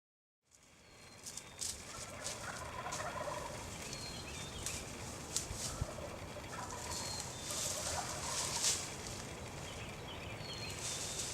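Wild turkey gobblers gobbling several times over outdoor background noise, the sound fading in shortly after the start.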